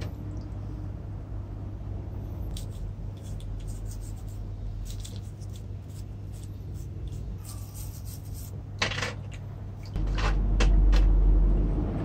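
Small metal parts of an air impact screwdriver being handled and scrubbed with a toothbrush in a tray of cleaning liquid: scattered light clicks, taps and rubbing over a steady low hum. A louder low rumble comes in about ten seconds in.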